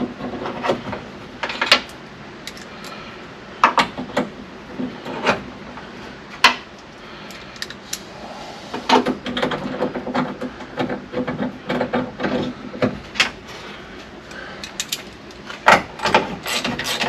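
Irregular clicks, taps and small metallic knocks of hand work at a truck door: a side mirror being fitted and its nuts started on the studs inside the door. The knocks come in clusters, busiest in the middle and near the end.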